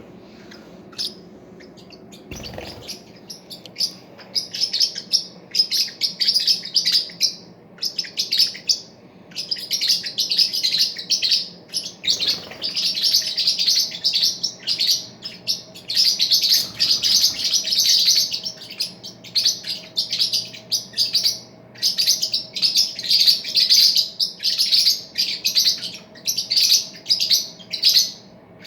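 Parrots chirping in rapid, high-pitched bursts, sparse at first and then nearly continuous from a few seconds in.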